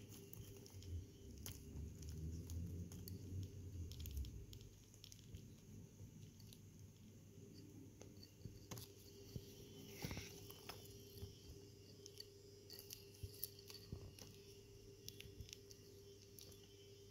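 Small tortoise biting and tearing dandelion leaves with its beak: faint, irregular crunchy clicks and snips of chewing. A low rumble runs under the first four seconds.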